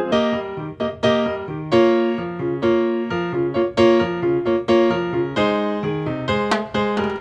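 Instrumental music: a piano-like keyboard playing a melody in separate, evenly paced notes, with a few sharp percussive hits coming in near the end.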